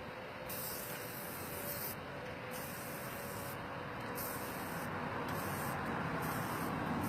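Aerosol spray-paint can spraying in a series of short hissing bursts, each about a second long with brief pauses between.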